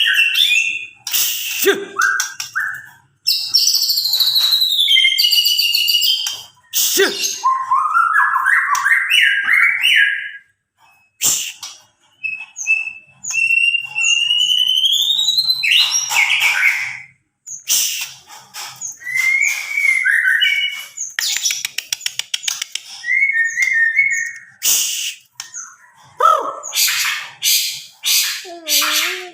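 White-rumped shama (murai batu) singing a varied song of rising and falling whistles, fast trills and harsh rasping notes, with a couple of brief pauses.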